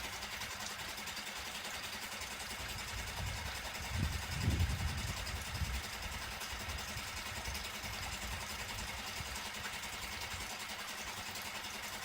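Suzuki DF6A 6 hp four-stroke outboard motor idling steadily on its test run, with a brief low swell about four seconds in.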